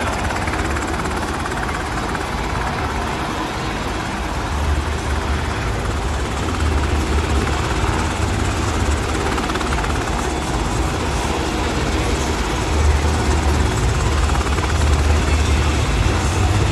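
Black Hawk helicopter running on the ground with its rotors turning: a steady low throb under constant engine noise, growing a little louder from about five seconds in.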